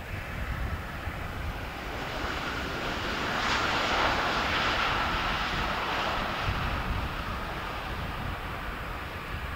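Airbus A350's Rolls-Royce Trent XWB jet engines running during the landing rollout just after touchdown: a steady jet noise that swells to its loudest about four seconds in, then eases off.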